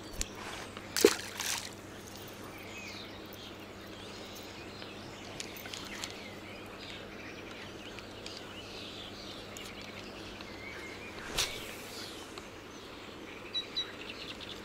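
Outdoor ambience by calm water with small birds chirping on and off throughout, broken by a loud, brief clatter about a second in and another short sharp noise later on.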